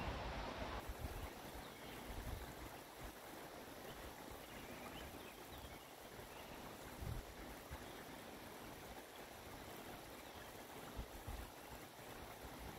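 Small stream flowing steadily, a faint even rush of water, with a couple of soft low thumps.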